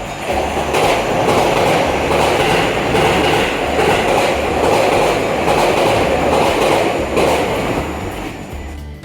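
Keisei Skyliner express train passing at speed: a steady rail rumble with wheel clacks over rail joints about every three-quarters of a second, car after car. The sound dies away near the end.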